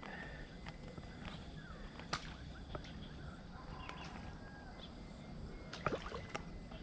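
Faint outdoor ambience: a few short bird chirps over a steady high hiss, with scattered small clicks and a sharper click about six seconds in.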